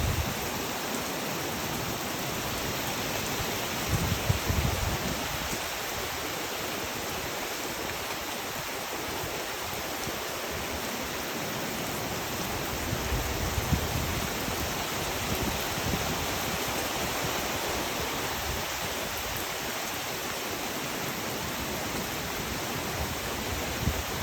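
Heavy rain falling steadily onto a pond, an even hiss of water with no letting up. Brief low swells of noise come about four and thirteen seconds in.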